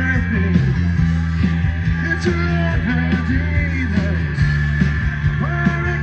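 Live rock band playing through PA speakers: electric guitar over a steady bass line.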